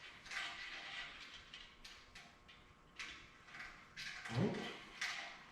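Faint scraping and several light clicks of a cable being pushed back through a crimp sleeve by hand, with a short sound from a person's voice about four seconds in.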